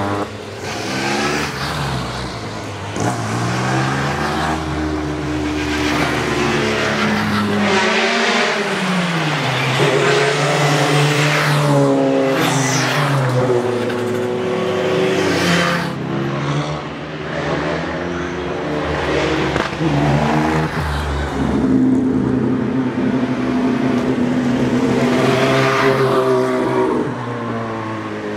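Race car engine revving hard up a hill climb, its pitch rising through each gear and dropping sharply at each shift, over and over.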